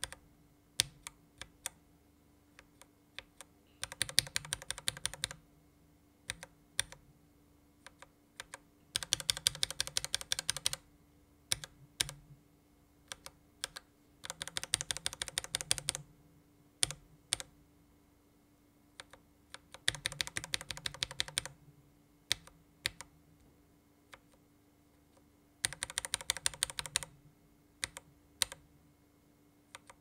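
Lubed linear mechanical keyboard switches, a Gateron Yellow KS-3X47 and then, about halfway, a Gateron Black KS-3X1, each pressed under a single keycap on a VX5 Pro keyboard. Separate single keystrokes alternate with bursts of rapid tapping about every five to six seconds.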